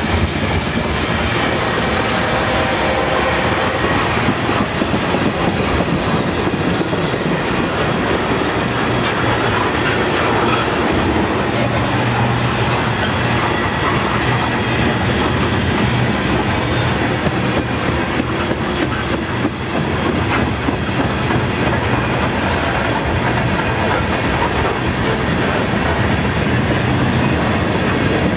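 Freight cars (gondolas, tank cars and covered hoppers) rolling steadily past. Their steel wheels rumble on the rails and click repeatedly over the rail joints.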